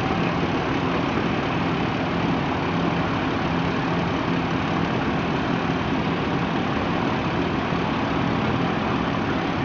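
Dodge Ram's Cummins inline-six turbodiesel idling steadily, with no revving.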